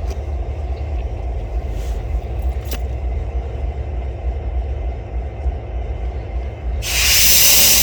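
Steady low rumble of an idling engine heard from inside a car cabin. A loud hiss starts near the end.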